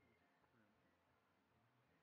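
Near silence: only a faint background hiss.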